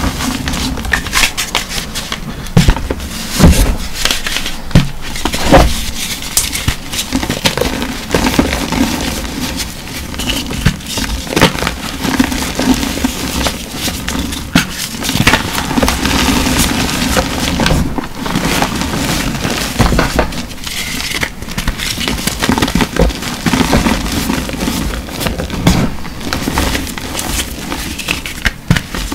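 Hands squeezing and crumbling blocks of reformed gym chalk, giving a crunchy, gritty crackle with frequent sharp snaps as chunks break apart.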